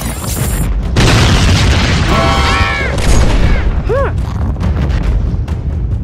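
Cartoon explosion sound effects: a heavy boom with continuous low rumbling, a loud burst of noise about a second in. Short pitched cries cut through the rumble around two and four seconds in.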